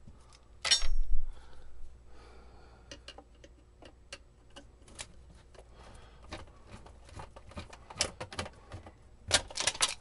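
Clicks and knocks of a screwdriver working screws out of a radio's metal bottom plate while the chassis is handled, with a loud clatter about a second in and a quick run of clicks near the end.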